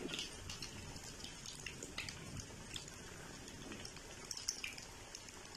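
Breadcrumb-coated chicken vegetable cutlets deep-frying in hot oil: a steady sizzle full of small, quick crackles and pops.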